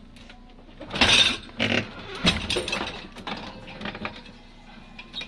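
Dishwasher rack and clean dishes clattering and clinking as they are handled, in a string of uneven knocks with the loudest clatter about a second in.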